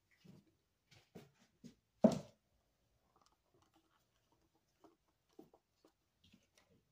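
Scattered small clicks and taps of soap-making containers and utensils being handled, with one louder knock about two seconds in.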